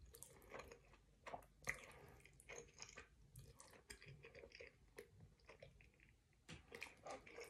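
Faint close-up chewing of a person eating, with irregular soft mouth clicks.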